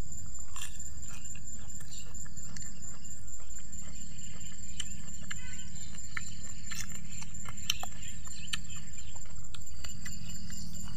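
Insects trilling steadily at a high pitch over a low steady rumble, with scattered small clicks and crunches of people eating and handling raw vegetables.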